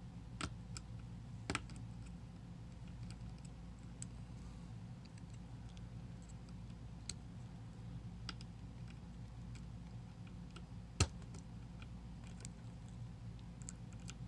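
Small, irregular metallic clicks and ticks of a steel pick and tension wrench working the pins of a 7-pin tubular lock, with one louder click near the end, over a steady low hum.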